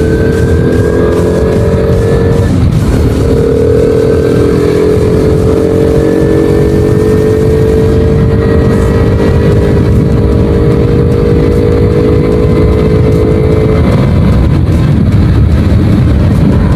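Honda Wave 110i single-cylinder four-stroke engine running under way, with loud intake and air-filter noise. The engine note dips briefly about two and a half seconds in, then holds steady with a slow slight fall and fades into low rushing noise near the end. Heavy wind noise on the microphone lies under it throughout.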